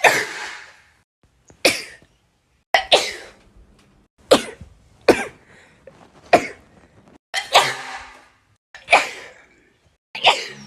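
A person sneezing repeatedly: about nine sharp, explosive sneezes, one every second or so, each dying away quickly.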